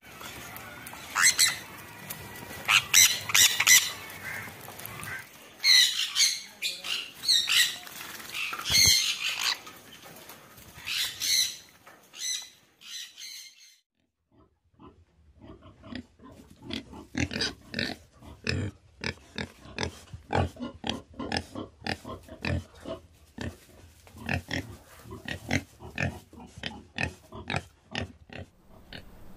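A flock of conures squawking shrilly, in a run of sharp high-pitched calls. After a short pause about halfway through, a different animal takes over with a long run of rapid short grunts, several a second.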